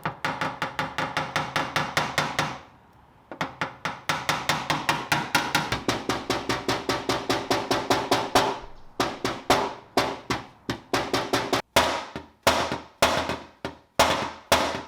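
Rapid hammer blows on ringing sheet metal, about six a second, with a short break near three seconds in. From about nine seconds on the blows slow to about two a second. This fits a body hammer tapping out a dent in a car fender.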